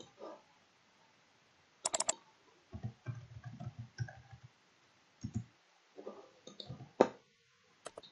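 Computer mouse clicks and keyboard taps: a quick cluster of three or four sharp clicks about two seconds in, a run of softer, duller taps after it, and a single loud click near the end.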